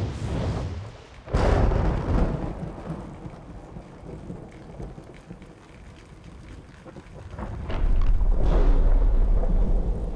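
Thunderstorm sound effect: a sudden thunderclap about a second in that rumbles away, then a second long roll of thunder building near the end, over a steady hiss of rain.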